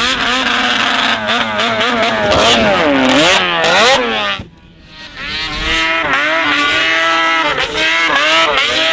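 Snowmobile engines revving hard, the pitch climbing and falling with the throttle as a sled runs at a jump ramp. Just after four seconds in the sound drops away sharply for about half a second, then two engines rev together again, their pitches rising and falling.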